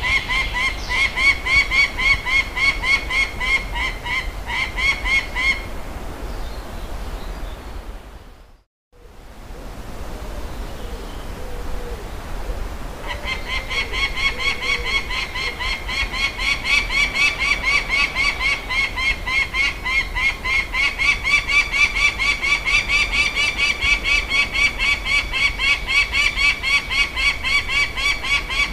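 Peregrine falcon giving its repeated kak-kak-kak call, a fast even series of about four notes a second. The calling pauses after about five seconds and starts again about eight seconds later, then runs on.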